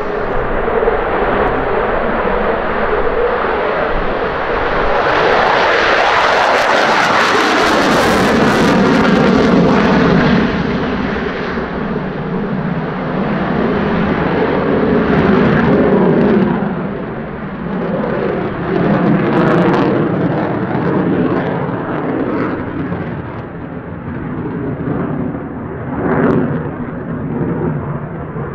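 Saab JAS-39 Gripen's Volvo RM12 afterburning turbofan at high power on takeoff and climb-out: a loud jet roar that swells to its loudest, with a crackling edge, about six to ten seconds in as the jet passes. It then rises and falls in waves as the aircraft manoeuvres overhead.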